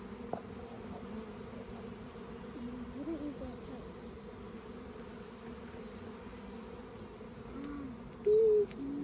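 A swarm of honey bees in flight making a steady mass buzzing, with the wavering buzz of single bees passing close by about three seconds in and one brief louder hum near the end.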